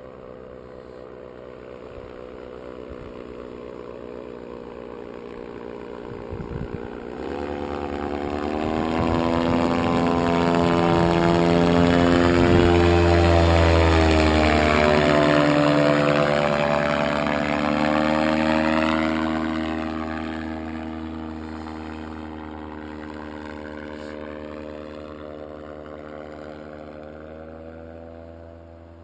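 Powered paraglider trike's engine and propeller flying past: the drone builds to its loudest around twelve to fourteen seconds in as it passes close overhead, drops in pitch as it goes by, then fades as it flies away.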